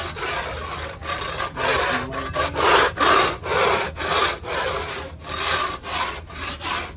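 Hand scraper scraping excess decorative flake off a cured epoxy floor patch, in quick repeated rasping strokes at about two a second.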